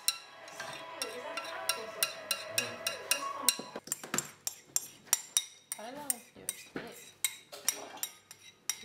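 Background music with a steady beat and a voice, over light clinks of a fork stirring cake mixture in a plastic mixing bowl.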